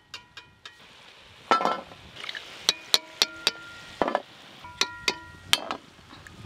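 Perforated steel slotted spoon clinking and tapping against a steel plate as fried goja pastries are tipped off it, about a dozen sharp metallic taps, each leaving a brief ring.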